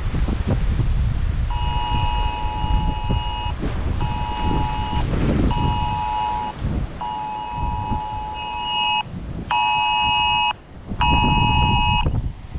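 Phone emergency alert sounding its two-tone attention signal, starting about a second and a half in, in a pattern of one long beep then two short ones, played twice. Heavy hurricane wind buffets the microphone underneath. The alert is a shelter-in-place warning.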